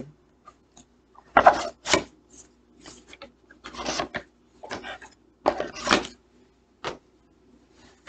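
Handling noises from a DVD case: several short rubbing and clattering sounds as it is moved about and handled.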